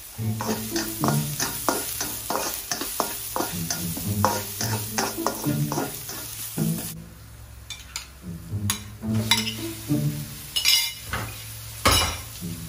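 A spatula scraping and knocking on a nonstick wok, about three strokes a second, as chopped onion and garlic fry in oil with a sizzle. The strokes thin out after about seven seconds.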